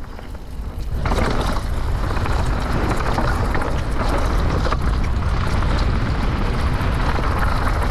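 Mountain bike riding down a dirt trail: wind rushing over the microphone and tyres rolling on dirt, building over the first second and then steady.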